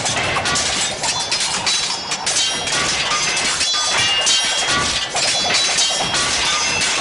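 Crashing, clattering slapstick sound effects over lively cartoon music.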